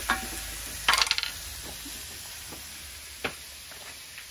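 Pork ribs frying in a pan with a faint steady sizzle. Over it come a few sharp clinks and, about a second in, a short loud metallic clatter of kitchen things being handled.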